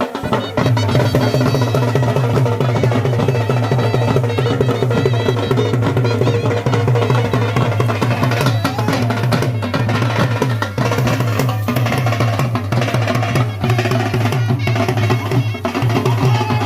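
Dhol and baja band playing traditional folk music: a fast, steady dhol beat over a wind instrument holding a steady drone, with a wavering melody line about halfway through.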